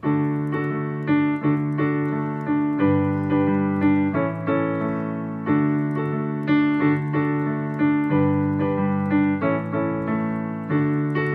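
Yamaha digital keyboard played with a piano voice, both hands sounding full chords that are struck about once a second and ring out, fading between strikes, in a slow changing progression.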